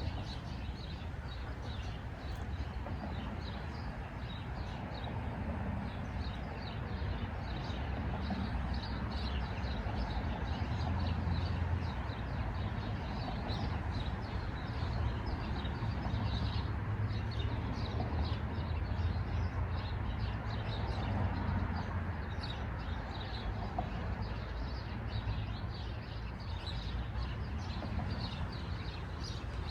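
Birds chirping: many short, high chirps, often overlapping, over a steady low rumble.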